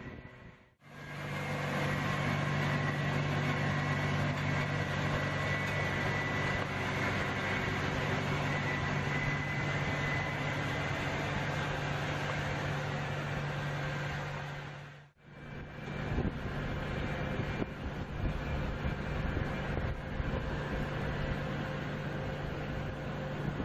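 Heavy machinery running: a steady low engine hum with a rougher, noisier stretch after a sudden break about two-thirds of the way through.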